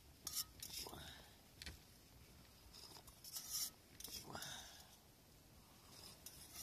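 A person slurping sips of hot water from a cup: several short, hissing draws of air at the lips, with quiet breathy sounds between them.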